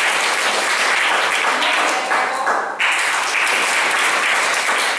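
Audience applauding steadily, with a brief drop in the clapping a little before halfway that picks up again abruptly.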